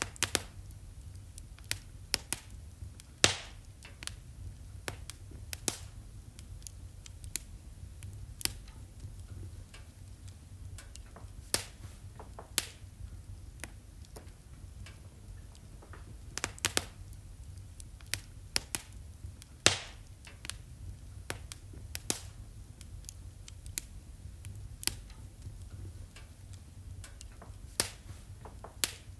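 Wood fire in a fireplace crackling: sharp, irregular pops about once a second, a few of them much louder, over a low, steady rumble.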